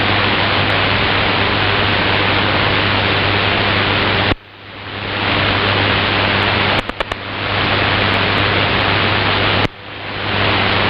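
Shortwave receiver hiss and static from a weak, fading broadcast signal, with a steady low hum under it. About four, seven and ten seconds in, sharp clicks of static come with sudden dips in the noise, which then climbs back over a second or so as the receiver's gain recovers.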